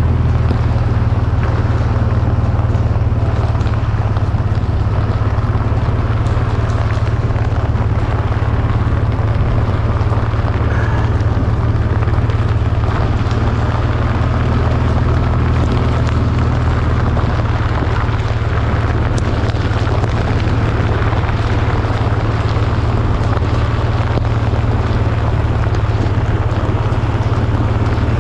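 Heavy, steady rain, with a constant low rumble on the microphone.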